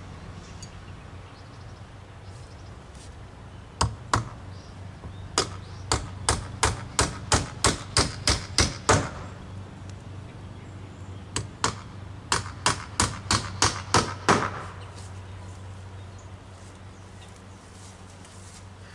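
Hammer blows on a wooden fence, nailing boards: two strikes, then a quick run of about a dozen, a short pause, and a run of about eight more, roughly three blows a second.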